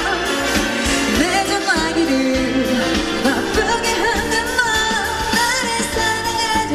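A woman singing a Korean pop song live into a microphone over backing music, with wavering vocal runs and then a long held note near the end.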